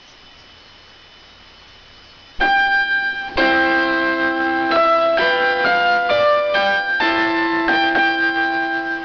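A keyboard alert melody in an electric-piano-like sound, after about two seconds of faint hiss. A held chord comes first, then a short run of changing notes, then another held chord that begins to fade near the end.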